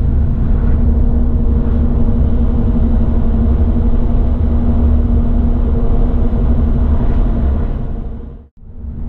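Steady low road rumble and drone of a car cruising at highway speed, heard from inside the cabin, with a steady hum over it. It fades out briefly about eight and a half seconds in, then comes back.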